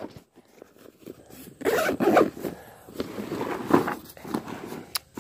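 The zipper of a 5.11 Rapid Duffel Sierra duffel bag being pulled shut in a few strokes, the longest about two seconds in.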